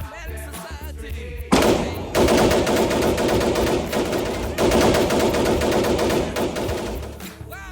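Rapid gunfire from a micro AR-15 pistol chambered in 5.56, starting abruptly about one and a half seconds in. It runs as long, fast strings of shots with a brief break near the middle.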